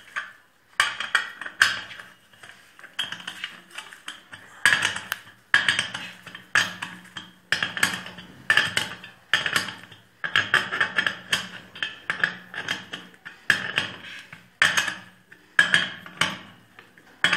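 Metal hand tools clicking and clinking against small-engine parts as bolts are worked on, in repeated short strokes about once a second.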